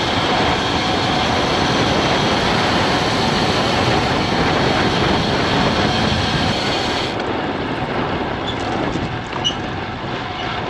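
Wind rushing over a GoPro's microphone with tyre roar on asphalt from a road bike at speed: a loud, steady rushing noise that thins in its highest hiss about seven seconds in.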